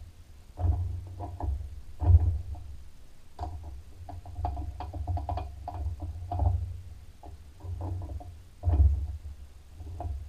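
Quick-change tool post and tool holder on a PM1236T lathe being adjusted by hand to set tool height: irregular metallic clicks and taps, with dull low bumps.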